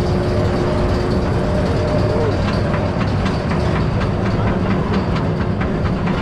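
Roller coaster train climbing away from the station: a steady mechanical rumble with quick, irregular clicking.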